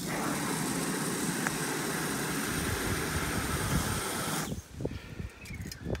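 Aerosol can of Sika Boom high-yield expanding foam spraying through its straw nozzle into a drilled hole: a steady hiss that cuts off about four and a half seconds in.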